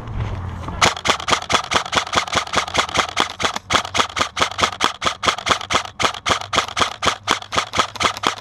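Airsoft gun firing a long string of shots, about six a second, in a steady rhythm starting about a second in.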